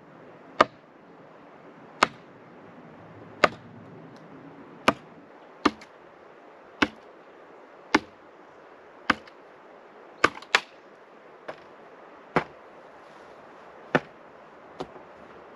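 A post being pounded into the ground for a bamboo carport frame: about fourteen sharp knocks, roughly one every second or so, a couple of them doubled.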